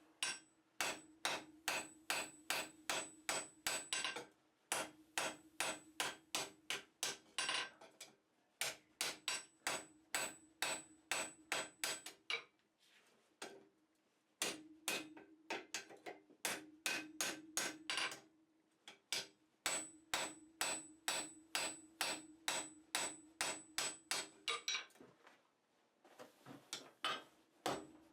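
Blacksmith's hand hammer striking steel on an anvil while forging tongs, in runs of even blows at about three a second, separated by short pauses. A steady ringing tone holds under each run of blows.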